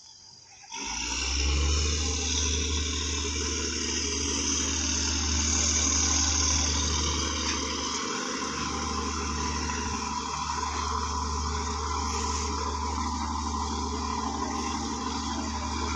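A boat engine running steadily under way, a low rumble with a rushing hiss over it, cutting in suddenly about a second in.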